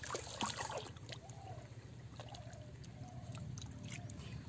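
Water splashing and sloshing in short, scattered strokes as people wade in shallow pond water and grope along the bottom with their hands. A steady low hum runs underneath.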